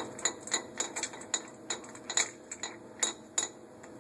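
Light metallic clicks and clinks, about a dozen in quick uneven succession, as a steel clamp dog and its nut and washer are fitted into place by hand.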